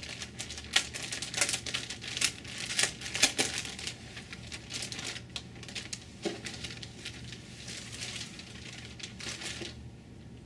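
Plastic packaging crinkling and rustling as it is handled and pulled open, in an irregular run of crackles that stops near the end.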